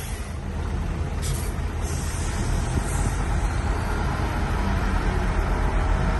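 Heavy diesel engine of earth-moving machinery running steadily, with short high hisses about a second in and again around two to three seconds in.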